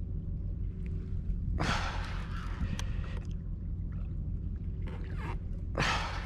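Wind rumbling steadily on the microphone on a kayak at sea, with short hissing bursts about two seconds in and again near the end, and a few faint clicks.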